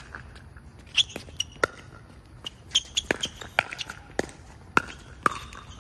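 Pickleball paddles striking a hollow plastic pickleball in a fast rally: about ten sharp pops, some under half a second apart.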